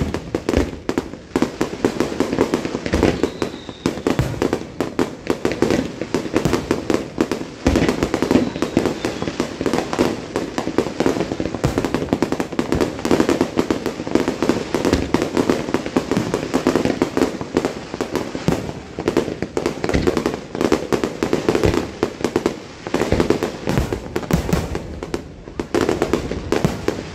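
Aerial fireworks shells bursting in a rapid, dense barrage: many overlapping bangs and crackles in quick succession, easing briefly a few seconds before the end.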